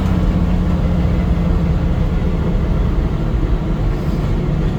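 1965 Chevy C10 pickup driving down the road, heard from inside the cab: a steady drone of engine and road noise.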